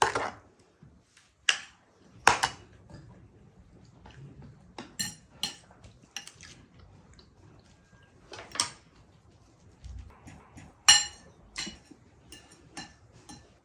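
Cutlery clinking and tapping on ceramic plates and dishes, in scattered irregular knocks, with a louder ringing clink about eleven seconds in.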